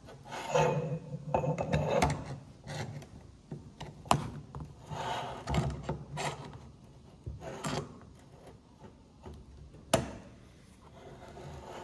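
Plastic dental typodont jaws and the metal clamp of their stand being handled and fitted together: rubbing and scraping, with sharp clicks, the loudest about four seconds in and near the end.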